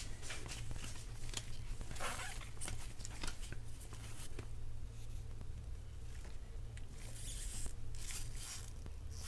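Trading cards being slid and flipped against one another in gloved hands: quiet scattered swishes and scrapes over a steady low hum.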